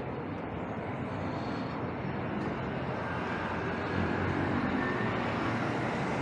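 Steady street traffic noise, a low-weighted rumble of passing vehicles that gets a little louder about four seconds in.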